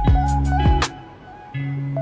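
Background music: a plucked melody over a deep bass and kick drum. It breaks off for about half a second a little after a second in, then starts again.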